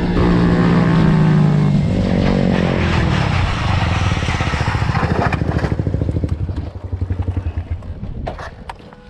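Small 125 cc single-cylinder motorcycle engine held at steady high revs, then falling away about two seconds in; the note breaks into a rough, uneven pulsing that fades out toward the end.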